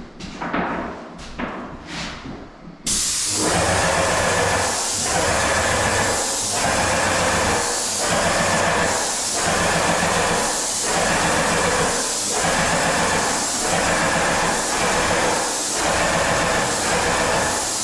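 Background music with a beat for about the first three seconds, then a sudden switch to a Graco GX21 airless paint sprayer at work: a loud, steady hiss of paint spraying from the gun over the hum of the pump, with short breaks every second or so.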